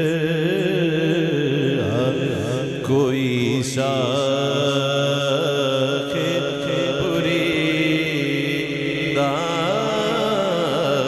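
A man singing a naat (Urdu devotional poem) into a microphone, holding long wavering melodic lines with vibrato.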